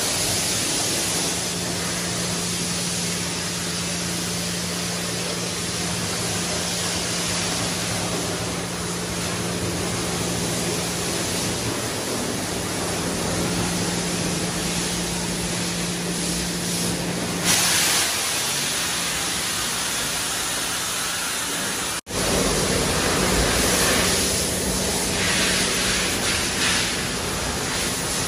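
Steady hiss of high-pressure water spray in a car wash bay, with the steady low hum of the pump under it for most of the first part. A brief louder blast of hiss comes about 17 seconds in; after a cut, the hiss returns louder, rising and falling in surges.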